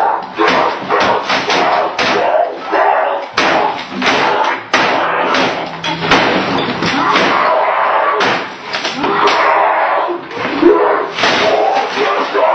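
A boy yelling and screaming while a computer keyboard is banged again and again on a desk, many sharp slams in quick succession.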